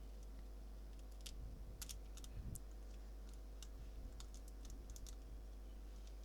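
Scattered light clicks and taps from small parts and tools being handled while a tablet is taken apart, with a few heavier knocks about two seconds in, over a steady low electrical hum.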